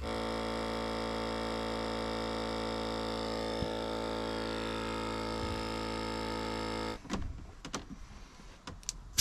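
Small electric air compressor running at a steady pitch, inflating a riding-mower tire's new inner tube, then cutting off abruptly about seven seconds in; light clicks and handling noise follow.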